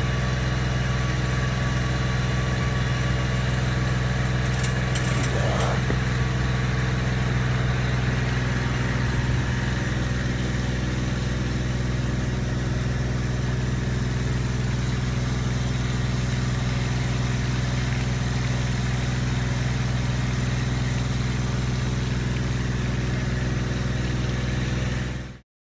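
Portable trash pump's small engine running steadily at a constant speed, then cutting off abruptly near the end.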